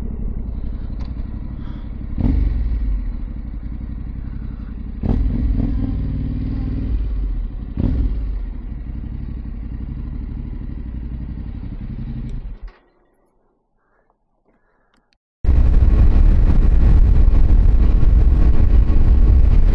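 Motorcycle engine running with three short blips of throttle, then the sound cuts out abruptly for about three seconds. It comes back as a louder, steady engine with wind rushing over the microphone, as when riding at speed.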